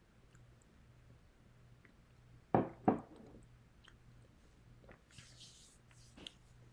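Two quick knocks close together about two and a half seconds in, then a brief rustle and a small click near the end, over a faint steady electrical hum.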